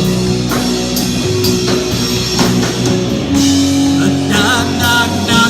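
Live rock band playing between sung lines: guitar and drum kit, with a wavering lead note near the end.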